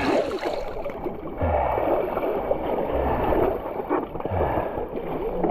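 Muddy water sloshing and splashing as a person wades through a pool obstacle and pulls up onto a rope cargo net. A few dull low thumps are heard in the water.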